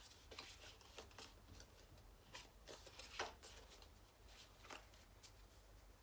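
Faint rustling and soft clicks of Pokémon trading cards being handled and slid against one another, with a slightly louder rustle about halfway through.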